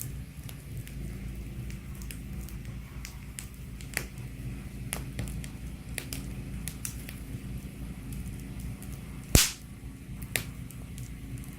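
Wood fire crackling in a fireplace: irregular sharp pops and cracks over a low steady rumble, with one loud pop about nine seconds in.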